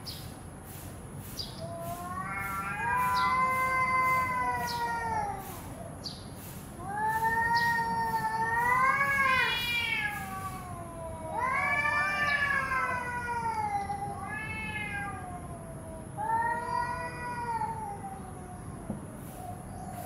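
Cats in a hostile standoff, yowling: a series of long, drawn-out threat yowls that waver up and down in pitch, each lasting a second or more and some several seconds, with short breaks between them.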